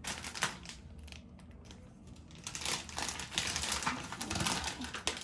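Rustling and crinkling handling noise with scattered light clicks as the corgi is shifted over to its other side. It becomes denser and louder about two and a half seconds in.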